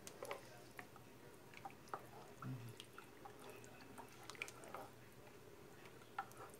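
Faint, scattered soft clicks and taps of a wooden spoon stirring seasoning into hot water in a small pot.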